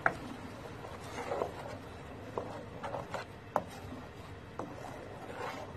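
A spatula stirring a thin, watery curry paste in a metal kadai: soft scraping with a few sharp knocks of the spatula against the pan, scattered through.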